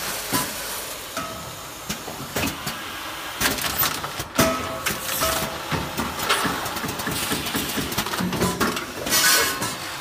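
Automatic granule packing machine running: clicking and clattering as its parts cycle, with rushes of air hiss from its pneumatic cylinders every few seconds.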